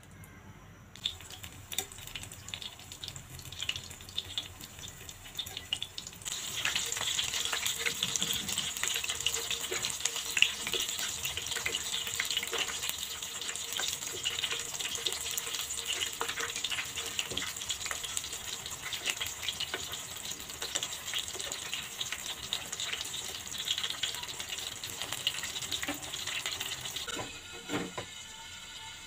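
Flour-coated chicken drumsticks deep-frying in hot oil in an aluminium pan: a dense sizzle full of small crackles. It gets much louder about six seconds in and drops away near the end.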